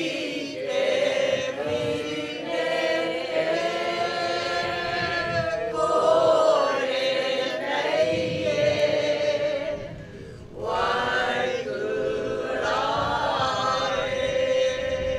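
A group of voices singing together in long sustained phrases, with a short break about ten seconds in before the singing resumes.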